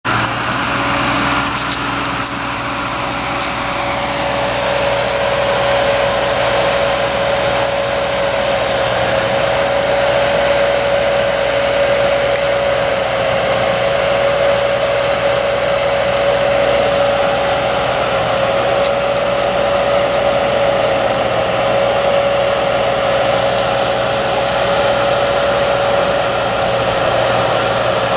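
Tractor engine running at a steady speed, with a steady whine over an even rushing noise.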